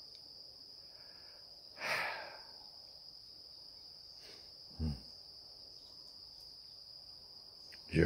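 Insects sounding one steady, high, unbroken note, with a short breath about two seconds in and a soft low thump just before five seconds.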